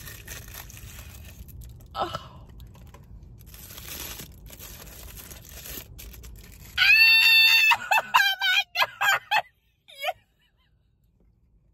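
Thin plastic wrapper of a small toy crinkling and tearing as it is pulled open. At about seven seconds, a woman's loud, high-pitched squeal of delight, then several shorter squeals.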